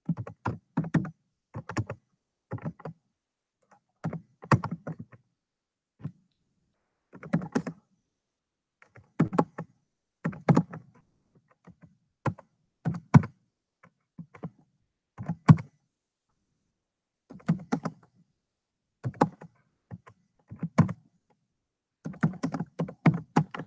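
Computer keyboard typing in short bursts of keystrokes, about a dozen bursts with silent pauses between them.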